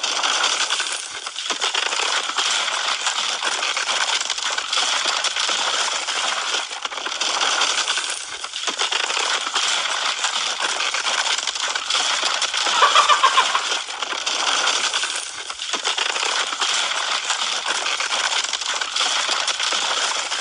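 Continuous dense metallic jingling and rattling, with no pauses and a few louder swells.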